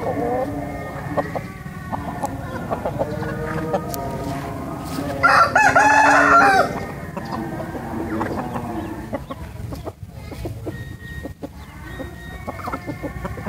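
A rooster crows once, about five seconds in, for a second and a half; it is the loudest sound. Chickens cluck before and after it.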